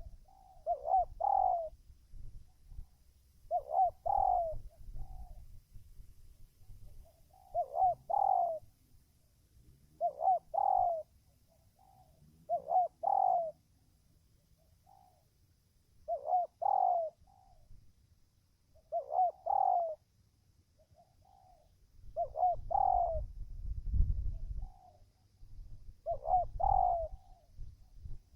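Spotted dove (tekukur) singing: a repeated cooing phrase of two or three notes about every three seconds, around ten times, each followed by a softer short note. A low rumble sits under the last few phrases.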